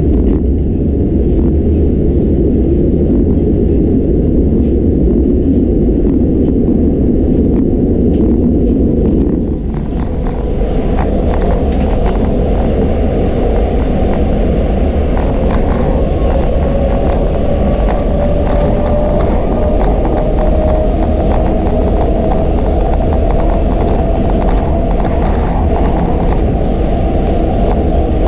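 An 81-740/741 Rusich metro train running at speed through a tunnel, heard from inside the driver's cab as a loud, steady rumble. About ten seconds in the sound turns brighter, and later a faint whine rises slowly in pitch, with scattered clicks throughout.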